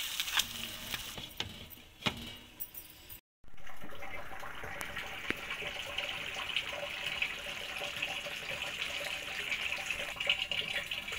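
A few knocks as fish pieces go into a pan of hot oil and green chilli masala, then, after a short break, the fish curry bubbling and sizzling steadily in its oil. The masala has released its oil, the sign the fish handi is cooked.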